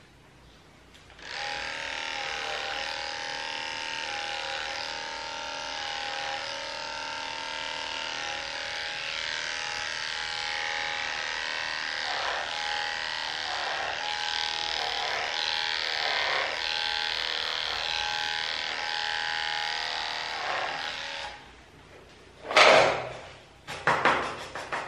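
Electric dog grooming clippers running with a steady buzz whose tone wavers slightly, then switched off about 21 seconds in. A few short, loud noises follow near the end.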